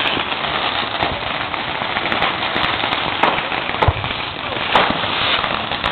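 Firecrackers and fireworks going off: a dense running crackle with frequent sharp pops and an occasional louder bang, the heaviest about four seconds in.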